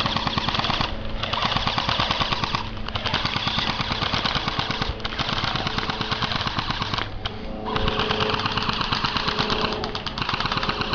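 Airsoft guns firing on full auto: a rapid clatter of shots in several long bursts broken by brief pauses.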